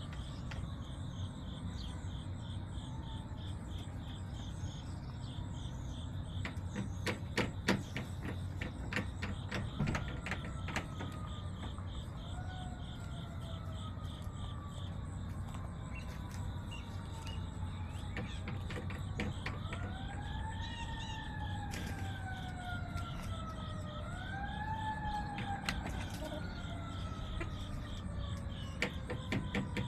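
An emergency-vehicle siren wailing: its pitch climbs quickly, then falls slowly, several times over, over a steady low rumble. A few sharp clicks or taps come in clusters about a third of the way through and again later.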